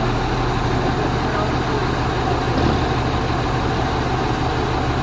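Four-axle truck engine running steadily, a constant low drone with no change in speed.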